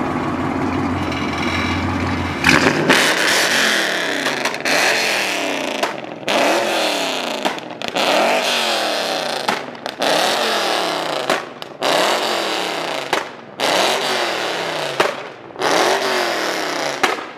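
Dodge Charger V8 engine idling, then revving hard again and again, its pitch climbing in short runs broken by brief drops. Its exhaust has a leak at the header.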